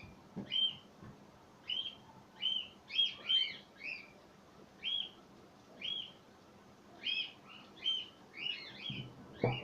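A bird chirping repeatedly: short, high chirps about once a second, sometimes two or three in quick succession.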